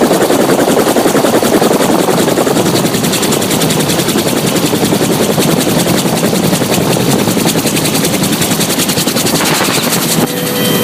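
Helicopter rotor blades chopping loudly in a fast, steady beat. Just before the end the sound drops a little and a steady whine comes in.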